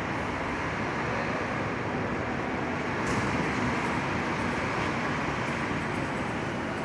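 Coach bus engine running, a steady noise that swells slightly about three seconds in.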